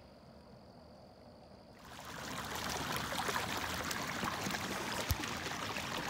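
Water rushing and splashing steadily, starting suddenly about two seconds in, with a few light clicks in the flow.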